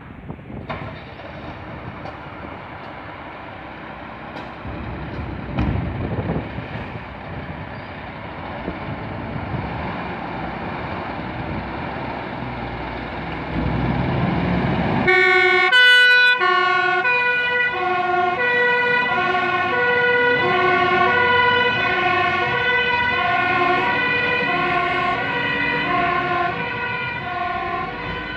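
Iveco fire engine's diesel running as it pulls out of the station bay. About halfway through, its two-tone siren switches on with a brief loud blare, then alternates steadily between a high and a low note, about one change a second.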